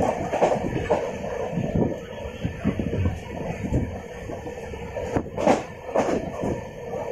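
Indian passenger train running, heard from inside a moving coach: a low rumble of wheels on the rails with frequent irregular knocks and rattles, the loudest clatter about five and a half seconds in.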